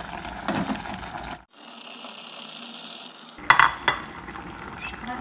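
Pots cooking on a gas stove, with a steady sizzle and bubbling and a few sharp clinks of metal cookware about three and a half seconds in.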